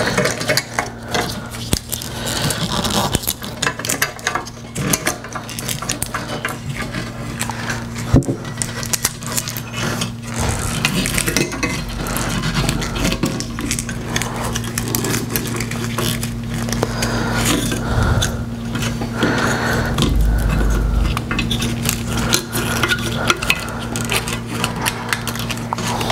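Hands handling a pop-up headlight assembly and its wiring: light plastic and metal clicks, clinks and scrapes, over a steady low hum.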